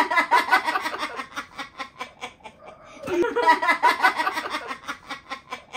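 Laughter in two bouts, the second starting about three seconds in.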